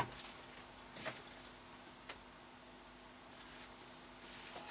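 A few faint clicks and ticks from switches and knobs being handled on a CB base station and the bench gear around it, the sharpest about two seconds in, over a low steady hum.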